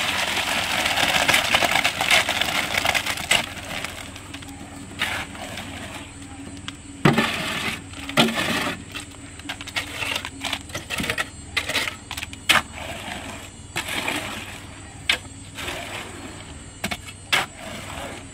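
Wet concrete sliding out of a tipped wheelbarrow into a footing trench, a rushing scrape that fades after about three seconds. Then a steel shovel scraping and knocking as it spreads the concrete in the hole, with sharp clicks scattered throughout.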